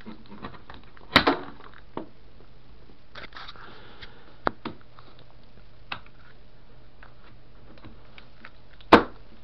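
Handling noise on a workbench: a few sharp knocks and clicks as cables and the circuit board are moved about, the loudest about a second in and another just before the end, with a brief rustle in the middle.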